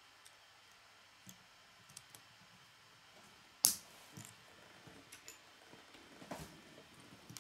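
Plastic K'nex pieces clicking as a small model is handled and pressed together, with one sharp snap about three and a half seconds in and a few softer clicks and knocks near the end.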